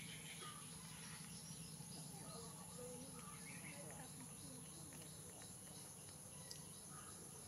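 Faint outdoor ambience: a steady high-pitched insect drone, with scattered faint chirps and a low background hum.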